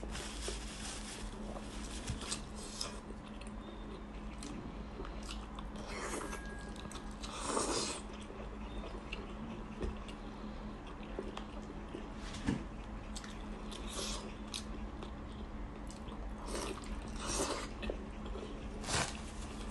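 Close-up eating sounds: a person chewing and biting soft cooked meat, with irregular wet mouth noises and a few louder moments. A steady low hum runs underneath.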